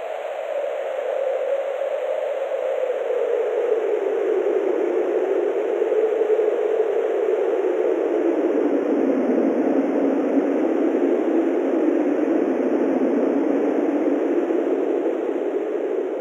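Wind blowing as a steady rush, with a low tone in it that slowly falls in pitch over several seconds and rises a little near the end.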